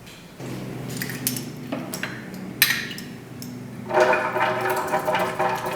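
Kitchen dishes and utensils clinking and knocking as recipe ingredients are handled, with a few sharp clinks in the first three seconds.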